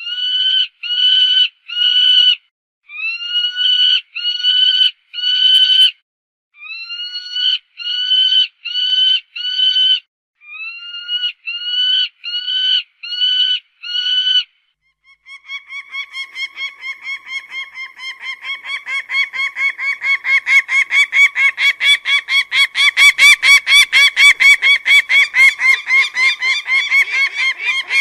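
Peregrine falcon calling: harsh calls, each rising at its start, in groups of three to five with short gaps; about halfway through it breaks into a fast, unbroken run of calls, about three a second, that grows louder.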